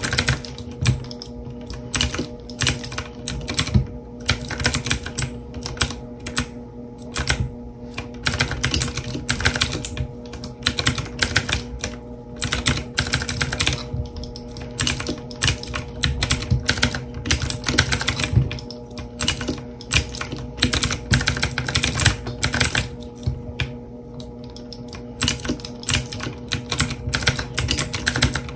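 Clicky blue-switch mechanical keyboard (E-Element Z-88) being hammered in rapid, uneven flurries of keystrokes, with a steady low hum underneath.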